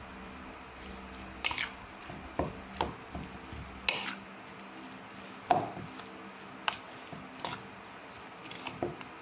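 Metal utensil stirring sliced onions and wet chili paste in a bowl: irregular clinks and scrapes against the bowl with soft squishing, about ten in all, over a low steady hum.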